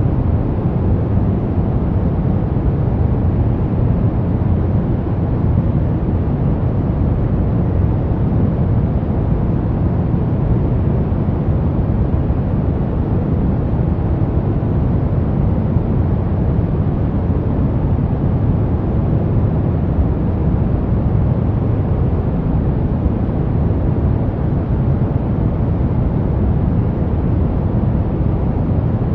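Brown noise: a steady, deep, even rushing hiss, strongest in the low end and unchanging throughout.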